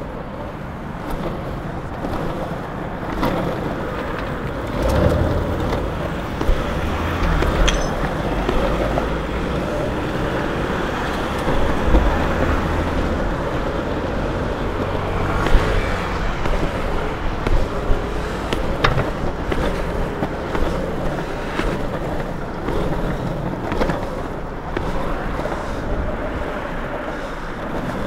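Longboard wheels rolling on asphalt with a steady rumble, and motor traffic running close by, its low engine hum strongest in the middle. Sharp clicks and knocks come now and then.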